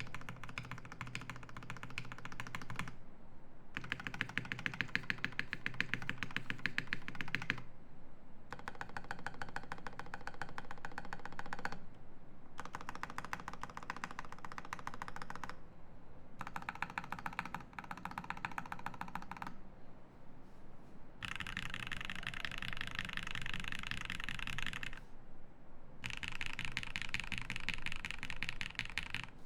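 Fast typing on a Classy TKL mechanical keyboard with lubed Everglide Aqua King linear switches on a brass plate and GMK keycaps, a dense run of key clacks. It comes in six runs of a few seconds each with short pauses between, the last two brighter in tone.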